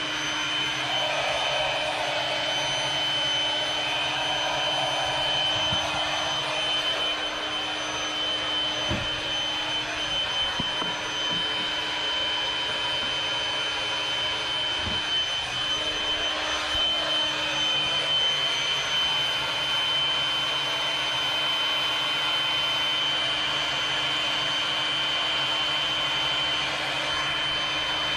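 Steady rush of compressed air feeding a homemade snorkel smoke tester through an air hose, with a thin high whine over it. A few faint knocks come near the middle.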